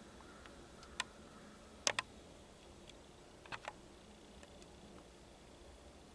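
A few sharp clicks or taps over a quiet background. There is a single click about a second in, then a quick double click just before two seconds, the loudest, and another double click about three and a half seconds in.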